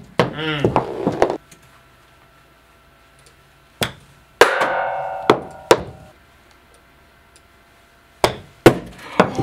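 Indoor golf chip shots: sharp clicks of a club striking golf balls, followed by the balls knocking against a cardboard box target and bouncing on the floor, several times. After one strike about four seconds in, a ringing tone fades out over a second or so.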